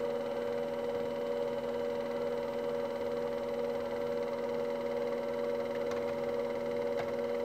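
CNC lathe's DC spindle motor running steadily at about 1125 RPM: a steady hum with a few even tones.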